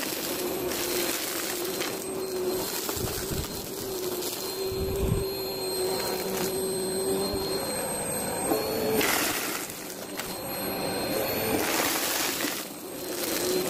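Upright bagless vacuum cleaner running with a steady whine, sucking up scattered confetti, balloon scraps and small debris that crackles and rattles into its clear bin, with louder surges twice in the latter half. The audio is sped up to double speed.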